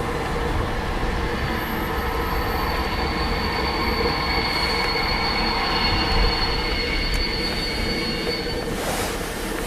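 Distant DR class 41 steam locomotive hissing steam steadily as it gets ready to start away. A thin, high, steady hissing tone joins in about a second and a half in and stops near the end.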